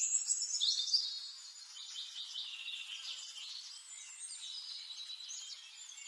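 Birds chirping and trilling: many short high calls and glides overlapping, busiest in the first second.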